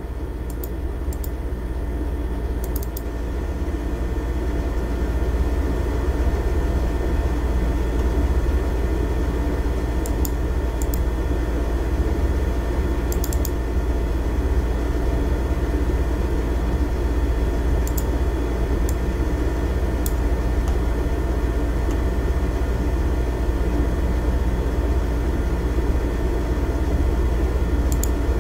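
Steady low machine hum with a whine of steady tones, running at an even level throughout, with a few short sharp clicks scattered through it: computer mouse clicks as a PDF is opened.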